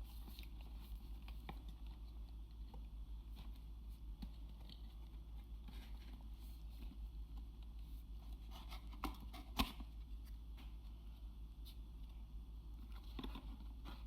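Quiet handling noises from unboxing: scattered light clicks and scrapes, with a sharper click about nine and a half seconds in, over a steady low hum.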